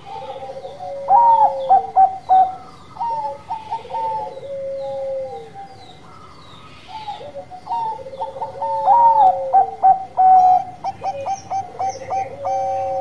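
Bangkok-strain zebra dove (perkutut) cooing its 'bekur' song in two phrases. Each phrase is a quick run of short coos that ends in a long, drawn-out low coo.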